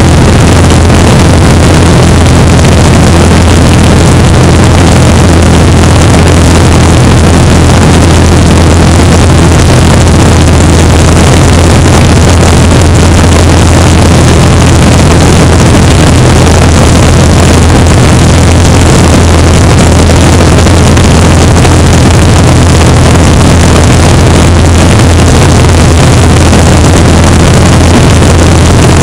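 Great Lakes biplane's piston engine and propeller running steadily in cruise flight, a loud unchanging low drone with wind rushing over the exposed microphone.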